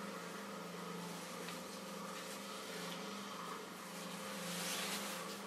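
A thin pointed tool scratching and scraping the surface of a clay form, with a longer, louder scrape about four and a half seconds in, over a steady low electric hum.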